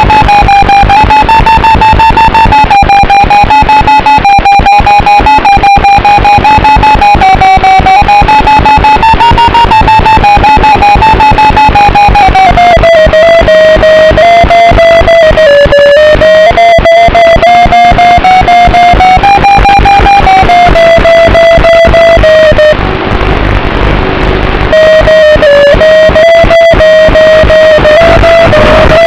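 Loud music with a fast beat and distorted electric guitar, dropping back briefly for a couple of seconds near the end.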